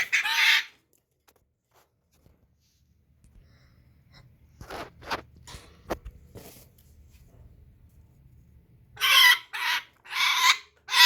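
African grey parrot giving harsh, screechy squawks in short bursts: one burst at the start, a few short sharp calls in the middle, and four loud squawks near the end, the agitated calls of an angry parrot.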